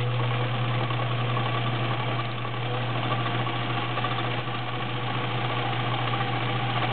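White 764 all-metal sewing machine's 1.3 amp motor running at a steady speed with a steady hum, the machine stitching a multi-point zigzag.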